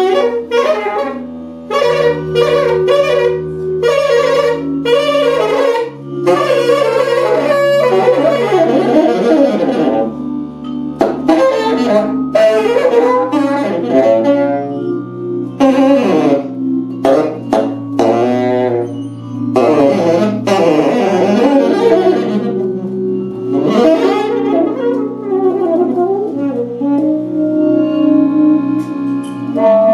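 Live jazz ensemble: tenor saxophone playing a quick, winding melodic line over held accordion chords and double bass.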